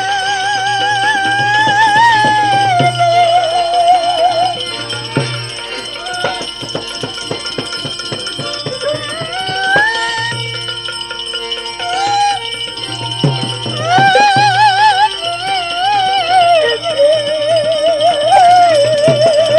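Gujarati bhajan music without sung words: a melody line wavering and sliding between held notes over a steady low drone, hand-drum strokes and jingling percussion.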